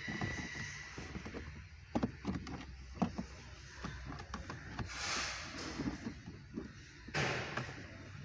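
Plastic centre-console trim cover on a Toyota C-HR being pressed and knocked into place: a series of light clicks and knocks, with two brief scraping rustles about five and seven seconds in as the panel slides home.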